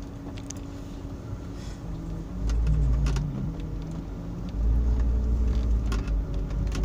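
Hyundai Santa Fe 4x4 heard from inside the cabin while driving over a rough field track. The engine hums steadily under a deep rumble that swells about two and a half seconds in and again near five seconds, with scattered knocks and rattles.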